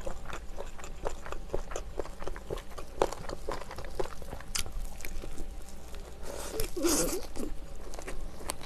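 Close-up mouth sounds of sauce-coated fried chicken being bitten and chewed: scattered crisp crunches and wet chewing, with a louder, longer mouth noise about seven seconds in.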